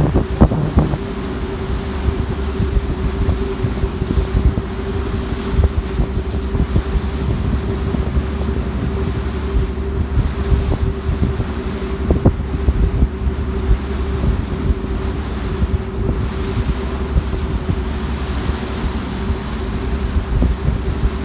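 Harbour ferry's engines running with a steady drone and a constant hum, with wind buffeting the microphone.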